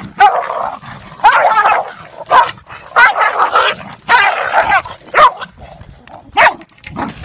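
Two dogs fighting, barking loudly in repeated bursts, about one every second.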